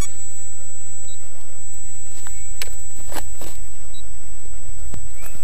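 Handling noise from the onboard camera as it is touched and set running: a few knocks and rustles around the middle, and two short high beeps, about a second in and at about four seconds, over a steady high whine and low rumble.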